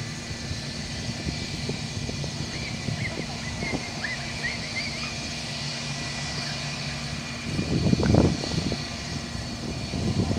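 An Airbus A320's IAE V2500 jet engines running at low thrust as it taxis, a steady low rumble with a faint whine. The rumble swells louder for a second or two near the end.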